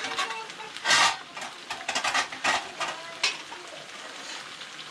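Zucchini slices sizzling as they fry in hot oil, with scrapes and clinks of a utensil against the pan; the loudest clatter comes about a second in.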